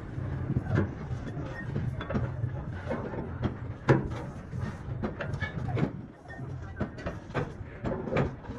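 Irregular knocks and taps on metal, the loudest about four seconds in, over a steady low hum: typical of hammering out a bent truck fuel tank.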